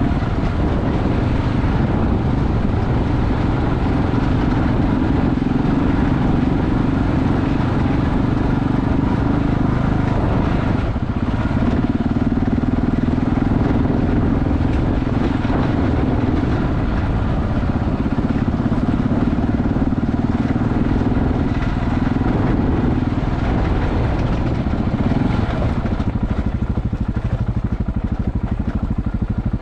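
KTM 690 Enduro's single-cylinder engine running steadily while the bike is ridden, its note easing off briefly about eleven seconds in and dropping lower for the last few seconds.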